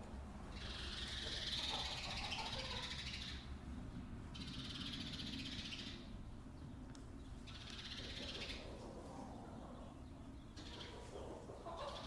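Chickens in a coop calling in several bursts of one to three seconds each, over a steady low hum.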